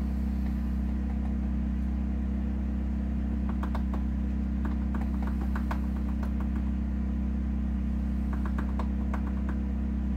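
A steady low machine hum, with scattered small light clicks and taps from handling parts at a Lee Load-All shotshell reloading press, in two short clusters.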